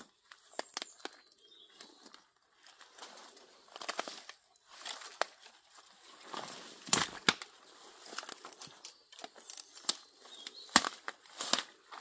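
Footsteps on the forest floor, each step rustling and crackling at an uneven pace, with a few sharper cracks among them.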